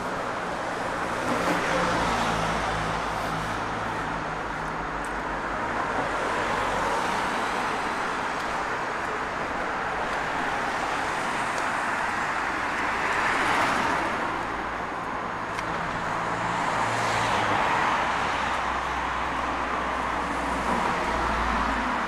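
Busy road traffic, cars passing one after another so that the noise swells and fades every few seconds, with a low engine hum underneath.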